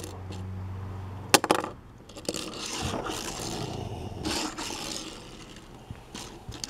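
Hot Wheels '76 Greenwood Corvette die-cast toy car skidding and rolling on its small wheels across a hard tabletop as it is pushed into a drift, a rough scraping rumble, with a sharp click about a second and a half in.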